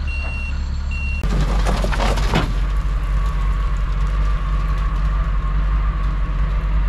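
Dump truck's reversing alarm beeping twice, then after a sudden change a second of rough scraping and rattling, followed by the truck's engine running steadily.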